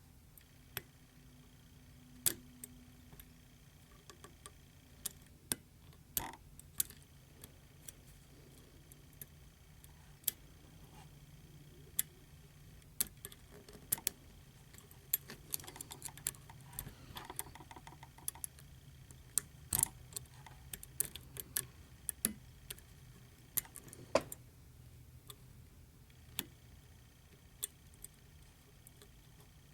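Hook lock pick and tension wrench working the sliders of a Bell slider lock: irregular sharp metallic clicks and ticks, a few louder than the rest, with light scraping, heaviest in the middle stretch.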